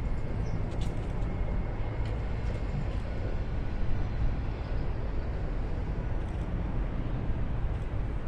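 Steady low rumble of distant road traffic, with no train passing.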